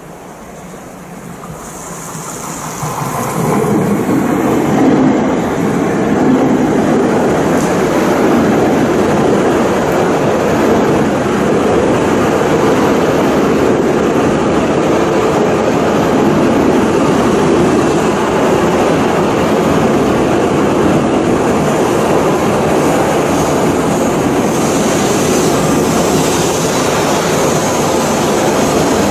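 Hayabusa shinkansen train noise, building up over the first few seconds, then a steady, loud rumble and rush of the running train.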